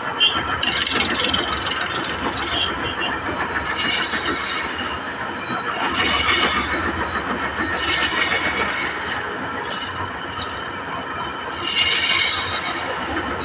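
A machine running steadily, with a higher-pitched sound swelling about every two seconds.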